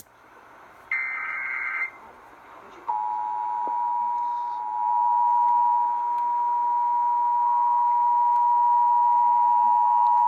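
Emergency Alert System test tones. About a second in comes a roughly one-second burst of warbling header data tones. From about three seconds in, the steady two-tone EAS attention signal plays, a loud held pair of pitches near 850 and 960 Hz.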